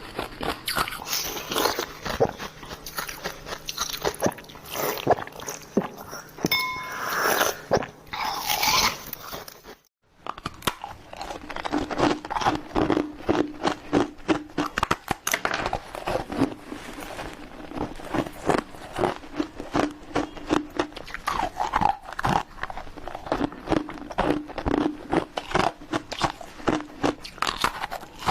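Ice being bitten and chewed close to the microphone: rapid, dense crunching and cracking. The crunching breaks off abruptly for a moment about a third of the way in, then goes on.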